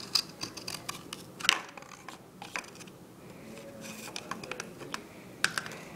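Scissors snipping into a cardboard toilet paper tube: a scattered series of short, crisp clicks and snips, the loudest about a second and a half in.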